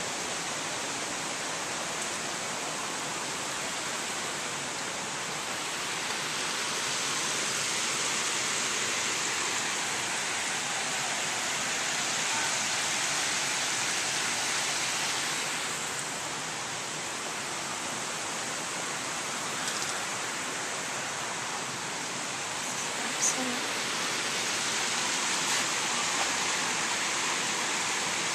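Water spilling over small stone weirs between garden pools: a steady rushing splash that swells and eases a little. There is one short click late on.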